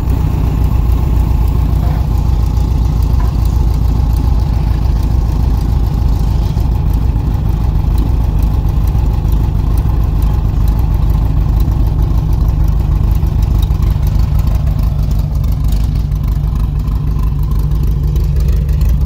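Volkswagen Fusca (Beetle) air-cooled flat-four engine idling steadily, heard close to the open rear engine bay.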